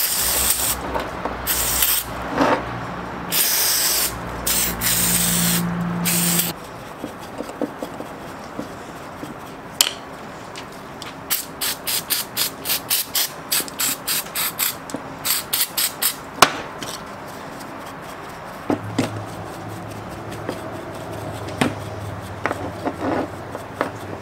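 Aerosol carburetor and choke cleaner sprayed onto a chainsaw carburetor in four short hissing bursts over the first six seconds. A quick run of short strokes follows, about three a second.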